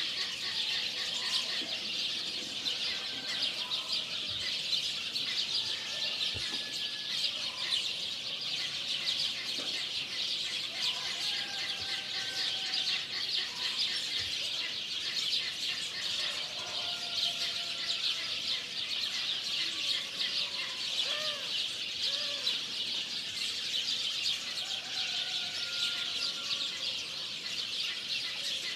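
Steady, high-pitched insect chorus, with scattered bird calls and whistles over it, some gliding up or down.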